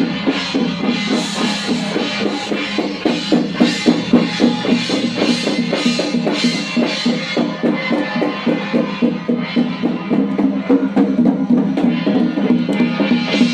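Chinese temple ceremonial music: fast, steady drumming, several strokes a second, under sustained ringing tones.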